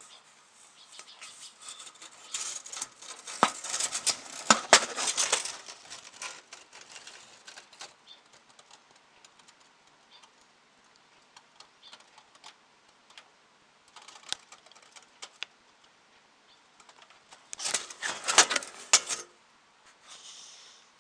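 A sparrow (Eurasian tree sparrow) trapped in a ventilation fan housing, fluttering and scrabbling against it. Two bursts of rapid scratching and tapping, the first a few seconds in and the second near the end, with a few scattered taps between.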